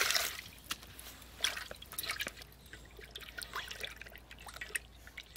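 Water in a basin splashing and dripping in small, irregular bits as hands rub and rinse whole pomfret fish; a stream of poured water stops right at the start.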